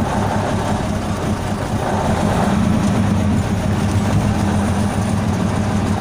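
Škoda RTHP fire truck's diesel engine running as the truck drives along, heard inside the cab: a steady low drone that grows a little louder about two seconds in.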